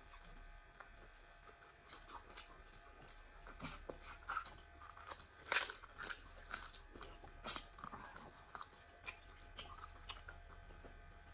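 A person chewing and eating pepper soup with meat: irregular soft mouth clicks and smacks, the loudest about five and a half seconds in.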